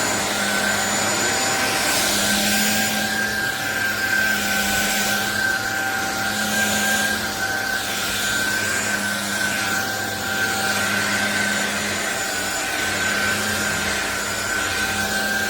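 SunSare X7A cordless stick vacuum cleaner running with a steady motor whine over a rushing air hiss. The hiss swells and eases every second or two.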